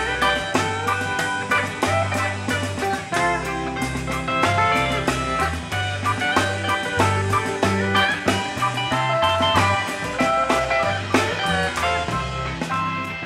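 Instrumental break of a country song played by a band in studio rehearsal: pedal steel guitar with sliding notes over electric bass, drum kit and guitar.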